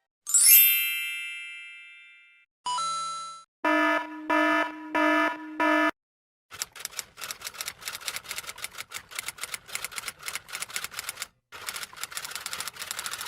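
A series of separate sound effects: a bright chime that rings out and fades over about two seconds, a short tone, then four loud electronic beeps in a row. From about halfway through come rapid irregular clicks like typing, with a brief pause near the end.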